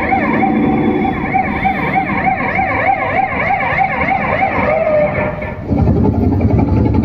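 Emergency-vehicle siren sound effect from a diorama show: overlapping sirens warbling quickly up and down in pitch. About five and a half seconds in they cut off and a low engine-like rumble takes over.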